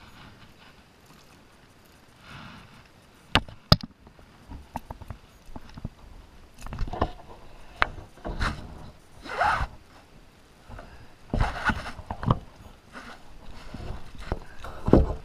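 Handling noises as a freshly caught sea bass is lifted aboard a plastic kayak: two sharp knocks about three and a half seconds in, then a run of irregular scraping and rustling bursts.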